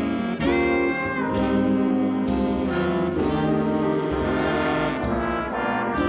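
Live big band jazz: the trumpet and trombone sections play sustained chords that change about once a second, over upright bass and the rest of the band.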